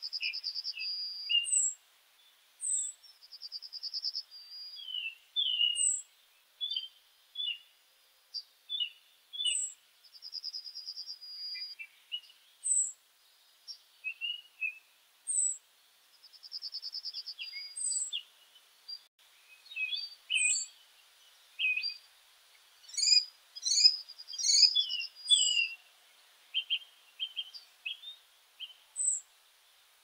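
Several small songbirds singing and calling together. A short fast trill repeats every few seconds among high thin notes and chirps, and the chorus is busiest a little past the middle.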